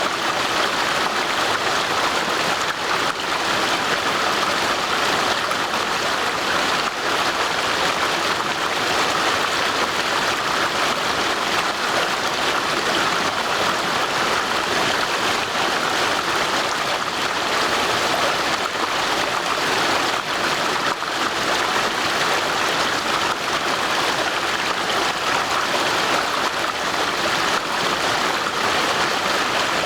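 A stream rushing steadily over stones, a constant even rush of water.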